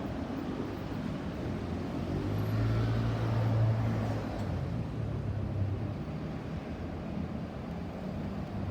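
A passing vehicle with a low hum that swells about two seconds in and dies away after about six seconds, over steady traffic noise.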